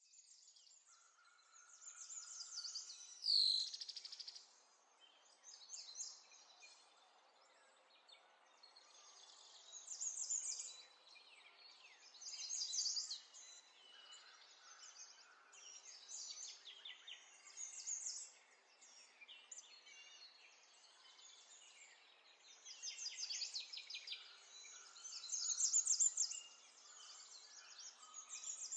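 Songbirds chirping and trilling in short bursts every few seconds, with one sharp falling call about three and a half seconds in.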